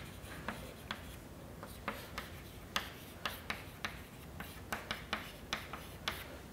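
Chalk writing on a chalkboard: a string of short, sharp, irregularly spaced taps and brief scrapes as letters are written.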